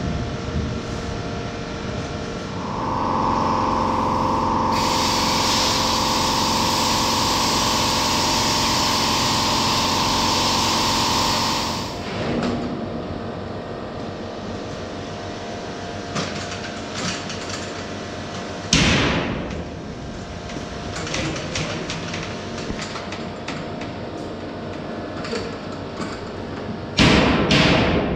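Steel-plate fabrication work: a power tool runs with a steady whine for about nine seconds, a harsh hiss joining it partway, then stops. Scattered knocks and clanks of metalwork follow, with one loud strike and two loud bangs near the end.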